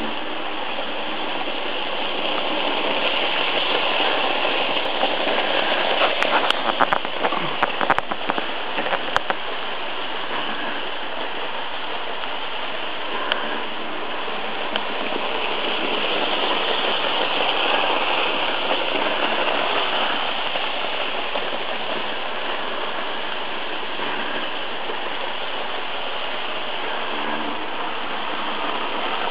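Märklin model trains running on metal track: a steady whirring rumble of electric motor and wheels that swells twice as a train passes close, with a run of sharp clicks about six to nine seconds in.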